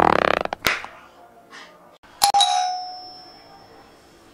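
A short rasping fart lasting under a second. About two seconds later a doorbell chimes and rings out, fading over about a second and a half.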